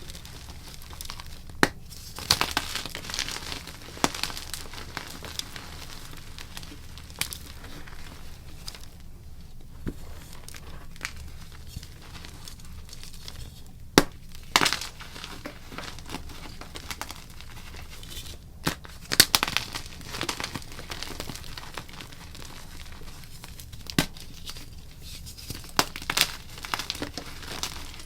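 Blocks of gym chalk being crushed and crumbled: a steady dry crackling, broken by a dozen or so sharp crunches as pieces snap.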